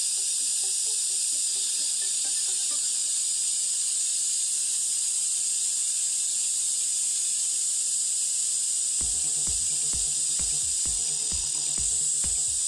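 A 2000 W laser welder laying a root pass with filler wire on bevelled 3 mm stainless flat bar: a steady high-pitched hiss. About nine seconds in, a rhythmic low beat of background music comes in under it.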